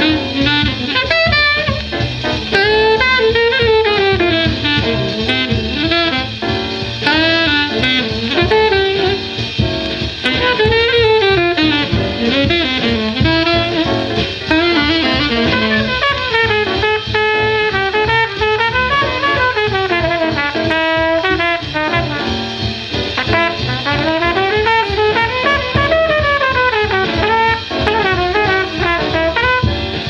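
A 78 rpm shellac record of a 1947 bebop quintet playing back on an RCA turntable: fast, winding alto saxophone and trumpet lines over piano, double bass and drums.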